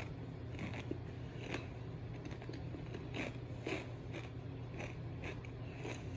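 A man chewing a piece of the Paqui One Chip tortilla chip with his mouth closed: faint, irregular crunches, a few each second.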